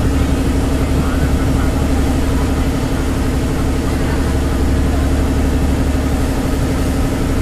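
Ferry boat's engine running steadily: a loud, even low drone with a steady hum above it and a constant rushing hiss over the top.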